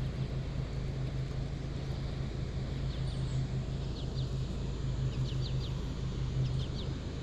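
A steady low mechanical hum over a low haze of noise, with short high chirps of a small bird repeated in little groups from about three seconds in.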